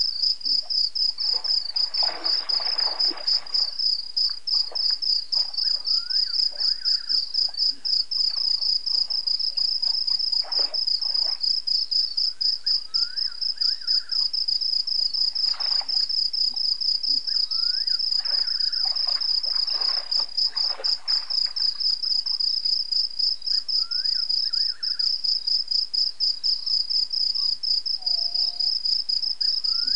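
Night insects, crickets, chirping in a steady, fast, high-pitched pulse. Behind them come short rising calls repeated now and then, and a few bursts of noise lasting a second or two.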